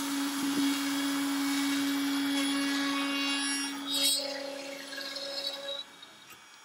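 Makita RT0701C trim router on a CNC machine, its small bit carving a detailed pattern into a cedar board: a steady whine over a wash of cutting noise. About four seconds in it briefly gets louder, and about a second before the end it drops away sharply.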